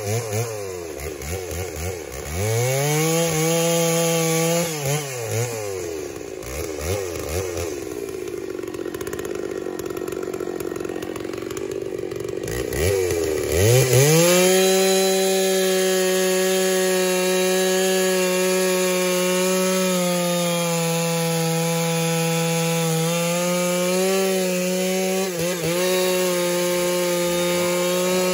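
Two-stroke Stihl chainsaw cutting through a log. Its revs rise and fall over the first few seconds, then run lower for a while. About halfway through it revs up and holds a steady high pitch at full throttle while the chain bites through the wood.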